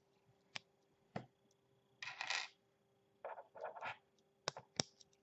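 Plastic LEGO Technic parts being handled and fitted: a few sharp clicks, with two short spells of rustling and rattling in between.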